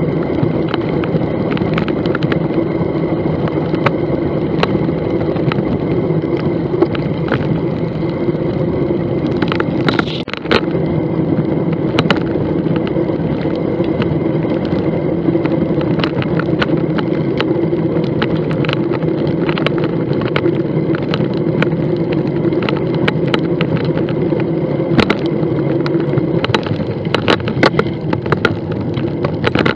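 Bicycle riding noise from a bike-mounted camera: a steady hum of tyres rolling and wind, broken by frequent sharp rattling clicks from bumps. The clicks grow denser near the end, when the bike is on a rough dirt track.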